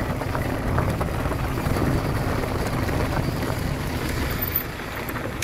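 Mountain bike rolling fast down a loose gravel trail: a steady rumble of tyres over gravel, mixed with wind buffeting the microphone and scattered small clicks.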